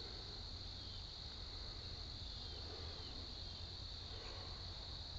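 Steady high-pitched insect chorus, crickets or katydids trilling without a break, with a few faint falling chirps over it in the first couple of seconds.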